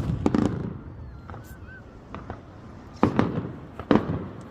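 Aerial fireworks exploding in a display: two sharp bangs at the start, then a quick cluster of three bangs about three seconds in, each trailing off in a rumbling echo.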